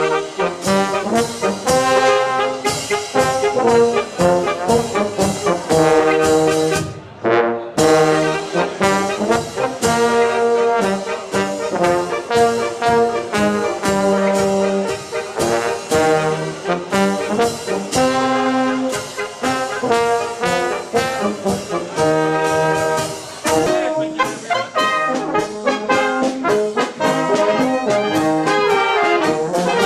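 Tyrolean brass band playing: tuba, trumpets and clarinets over a steady bass-drum beat, with a brief break about seven seconds in.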